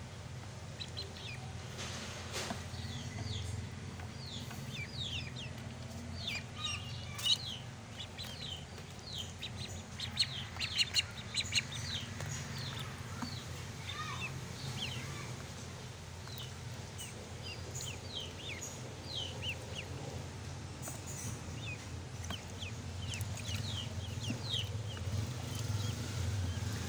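Several ducklings peeping continuously, a dense chatter of short, high, downward-sliding peeps. A few sharp clicks come through about a third of the way in.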